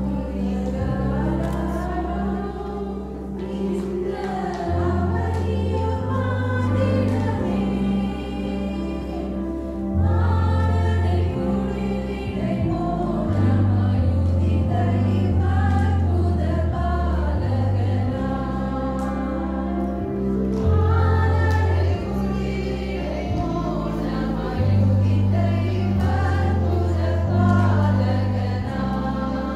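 A women's group singing a hymn together, accompanied by an electronic keyboard playing held bass notes that change every second or two.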